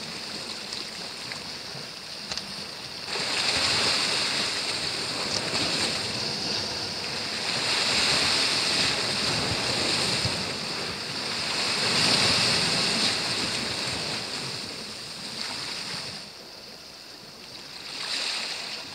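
Sea waves washing against a rocky shore, the rush swelling and falling back every few seconds.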